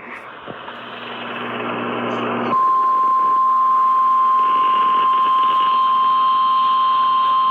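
Radio hiss growing louder, then about two and a half seconds in a steady single-pitch alert tone starts abruptly and holds. This is the NOAA Weather Radio 1050 Hz warning alarm tone, which signals that a warning is about to be broadcast.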